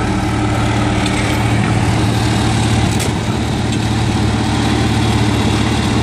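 A heavy engine idling steadily, a constant low hum that does not rise or fall.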